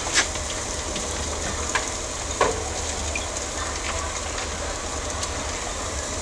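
A pickup truck burning, fully engulfed: the fire gives a steady rushing crackle with sharp pops, three louder cracks in the first two and a half seconds.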